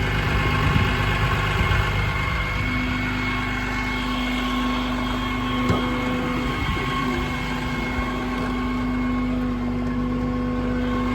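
Ram 5500's 6.7 L Cummins inline-six turbo-diesel idling with a steady rumble and hum. A steadier tone comes in about two and a half seconds in, and there is a single click about six seconds in.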